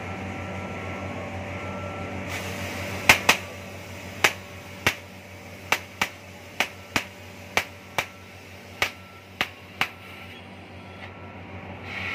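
Oxy-fuel cutting torch working a steel plate: about a dozen sharp pops and snaps, irregularly spaced roughly half a second apart, over a steady hum. A hiss rises near the end.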